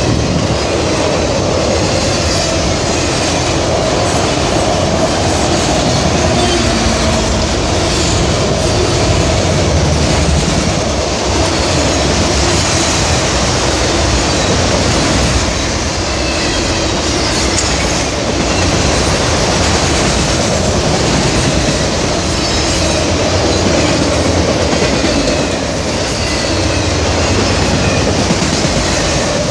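A train rolling past close by: the steady rumble and rattle of railcars and wheels on the rails, with some wheel squeal.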